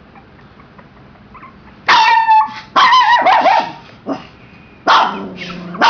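A young puppy barking: short, high-pitched yaps in three bursts, beginning about two seconds in.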